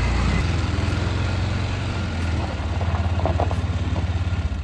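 A large engine idling steadily with a low, even pulse.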